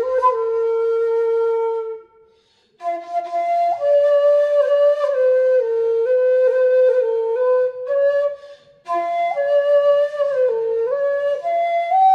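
Background music: a slow solo melody on a flute, moving note by note, with two short pauses between phrases, about two and nine seconds in.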